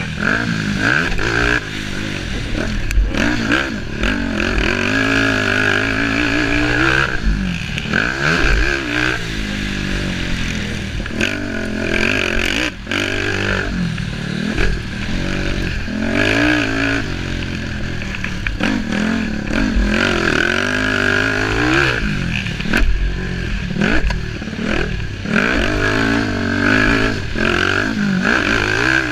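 Racing engines revving hard, their pitch climbing and dropping again and again, several overlapping at once.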